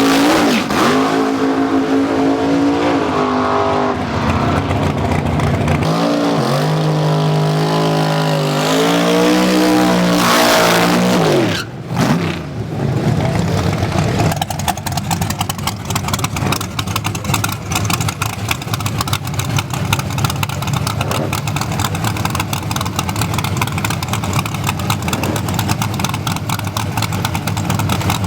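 Drag race car engine revving and accelerating, its pitch stepping up and climbing for about eleven seconds, then dropping away suddenly. After that, a loud engine runs at a rapid, choppy idle to the end.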